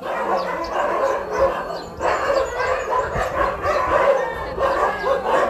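Many dogs barking and yipping at once in a dense, continuous chorus.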